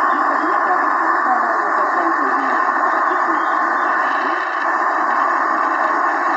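Shortwave radio receiver tuned to Radio Mosoj Chaski on 3310 kHz: steady static and hiss from a weak signal, with a faint voice from the broadcast buried beneath it.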